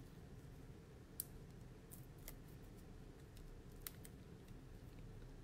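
Near silence with a few faint, sharp little clicks, the clearest about one, two and four seconds in: fingernails picking the paper release backings off foam adhesive dimensionals.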